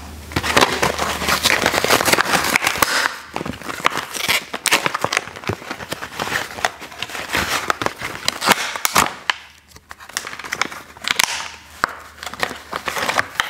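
Plastic blister packaging on a cardboard card crinkling and crackling as a toy figure is pried and torn out of it: a quick run of sharp crackles, with a short lull about two-thirds of the way through.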